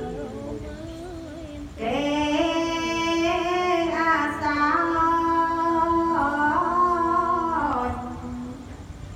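Khmer smot, Buddhist verse chanted by a single high voice in long, held notes with winding ornaments. It swells into a loud sustained phrase about two seconds in and tails off near the end.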